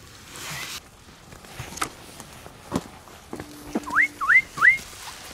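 A person whistling three quick, loud rising whistles in succession in the second half. Before them come rustling and a few sharp clicks or snaps.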